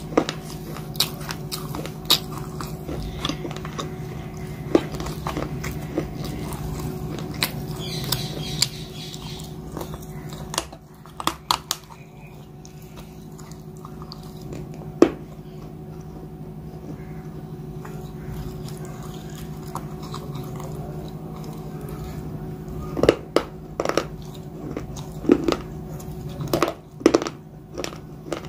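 A person biting and chewing a grey paste close to the microphone: scattered crunches and wet mouth clicks, one sharp crunch about halfway through and a quick cluster near the end. A steady low hum runs underneath.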